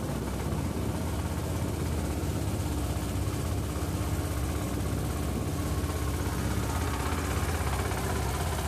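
Boat engine running steadily under way, a constant low hum with a steady tone, over the hiss of water churning in the wake.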